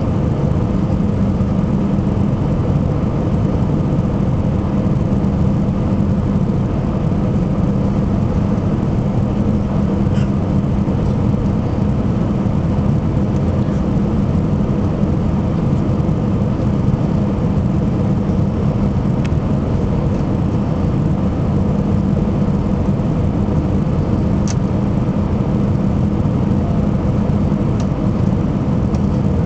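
Steady cabin drone of an Airbus A319 airliner on approach, heard from a window seat beside the wing: jet engines and airflow in a constant rumble with a low hum, unchanging throughout.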